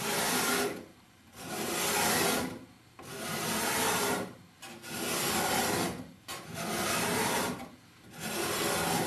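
Hand-held steel card scraper with a freshly turned burr, pushed along a wooden board in six steady strokes about a second apart. Each stroke is a dry scraping hiss as the burr takes off very fine shavings.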